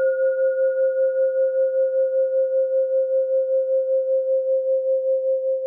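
A singing bowl ringing out after a single strike: one mid-pitched tone that wavers evenly in loudness and fades slowly, its higher overtone dying away about five seconds in.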